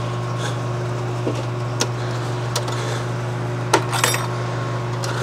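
Scattered light clicks and knocks of parts being handled and fitted inside a desktop PC case, about seven in all, the loudest near the end, over a steady low hum.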